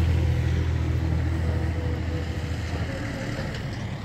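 A motor vehicle's engine running with a steady low hum, growing fainter after about three seconds.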